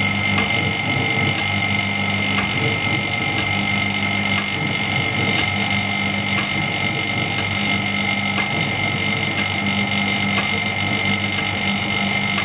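LCD separating machine running, with its vacuum pump on and the steel cutting wire being drawn through the screen's glue: a steady mechanical hum with a high whine, a lower drone that comes and goes, and faint ticks about once a second.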